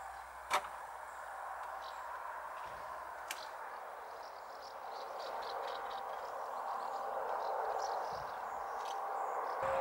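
Outdoor ambience: a steady rushing background noise with faint, short, high chirps repeating through the second half. A single sharp click comes about half a second in, and a smaller one a few seconds later.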